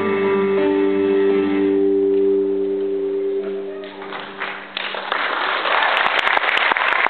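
Dance music with held notes fades out at the end of the piece, and about five seconds in an audience breaks into applause that keeps going.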